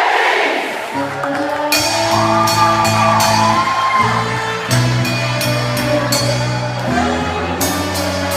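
Live band music: sustained low bass notes with a melody line above and sharp high percussion strikes at a regular beat. A burst of noisy crowd voices fades out in the first second.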